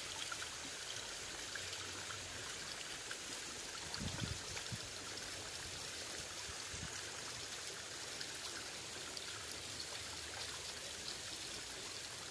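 Shallow rocky stream flowing steadily: an even rush and trickle of water, with a couple of brief low bumps about four and seven seconds in.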